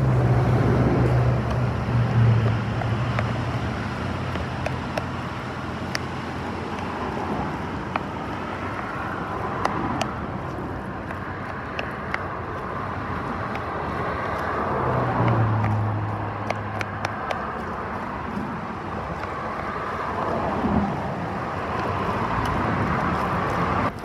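A utensil mixing and mashing guacamole in a plastic tub, with scattered light clicks and scrapes against the plastic, over a steady outdoor rushing noise that swells and fades a few times.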